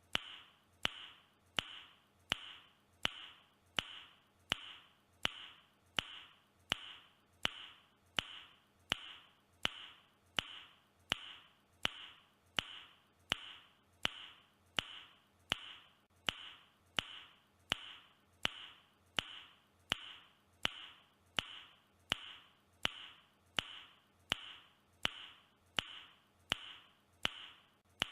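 A person's mouth click repeated over and over at an even pace, about three clicks every two seconds. Each click is sharp with a short hiss after it, and every repeat is identical, as from one recorded click played in a loop.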